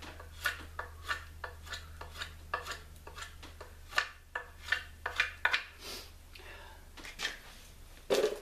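A customized Becker BK11 knife shaving a debarked branch, thought to be cherry, as a walking stick is whittled to shape: a run of short, sharp scraping strokes, roughly two a second.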